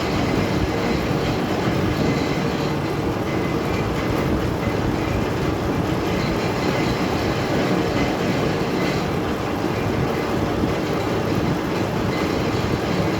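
Metal lathe running steadily while cutting a thread on a steel shaft with a high-speed-steel tool.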